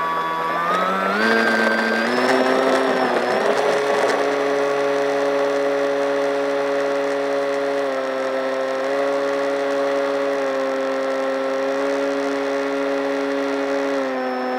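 Electric motor and propeller of a Fowl Flyer foam RC plane, heard close from an onboard camera. The whine rises in pitch as the throttle comes up for takeoff, with a rush of noise over the first few seconds. It then holds a steady pitch in flight, with small throttle changes.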